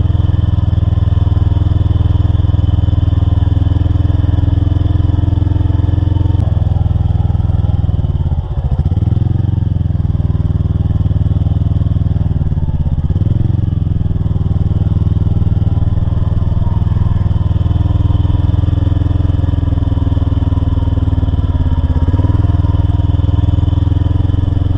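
Mud-bog truck engine running loud at steady high revs. Three times the revs drop briefly and then pick back up.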